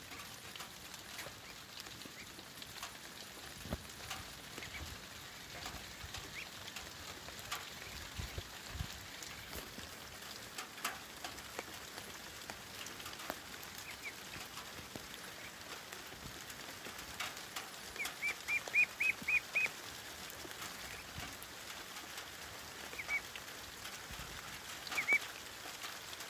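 Light drizzle pattering and dripping around a duck pen, with ducklings giving high, short peeps: a quick run of about seven peeps some two-thirds of the way through, and a couple of short pairs near the end.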